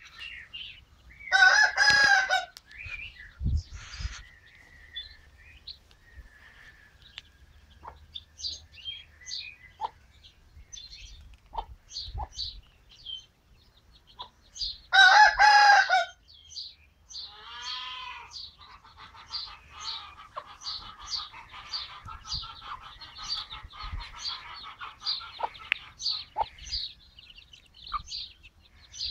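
Aseel rooster crowing twice, each crow short and loud, the first about a second in and the second about fifteen seconds in. Small birds chirp throughout.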